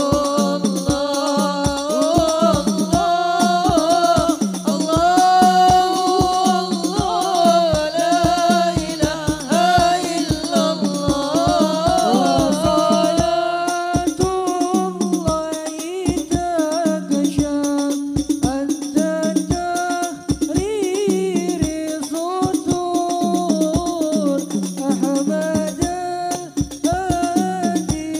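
Men singing Islamic devotional sholawat into microphones, with a hadrah group of hand-beaten frame drums (rebana) keeping a steady, dense beat.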